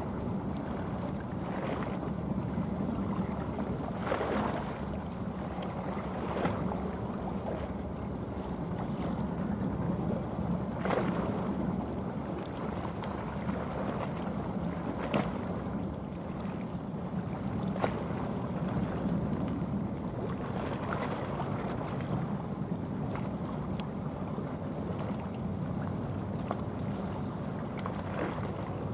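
Steady low drone of a small coastal sand carrier's diesel engine as it passes under way, over a wash of water noise, with short water splashes every few seconds and some wind on the microphone.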